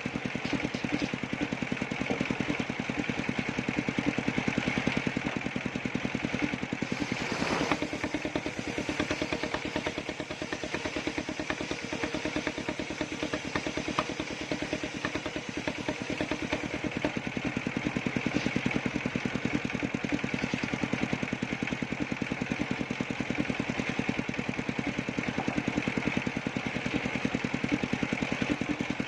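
Engine of a circular-saw sawmill running steadily with a fast, even chug.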